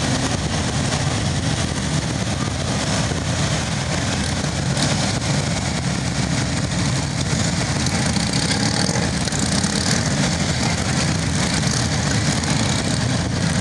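Several police motorcycles running together at low speed as they weave in close formation, a steady, even engine sound.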